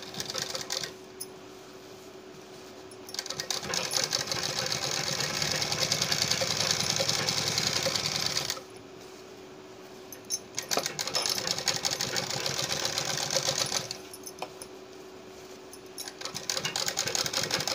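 Domestic sewing machine stitching a seam in three runs of fast, even needle clatter: one a few seconds in, a shorter one in the middle, and another starting near the end, with short pauses between them while the fabric is turned. A faint steady hum runs underneath.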